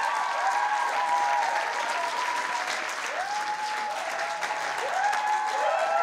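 A crowd applauding and cheering, with many voices whooping in long rising-and-falling calls over the clapping.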